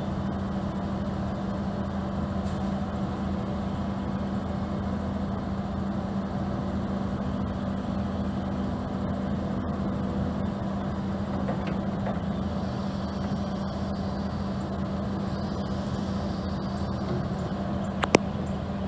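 Kobelco SK210-9 excavator's diesel engine running steadily while the boom, arm and bucket are worked, with one sharp knock near the end.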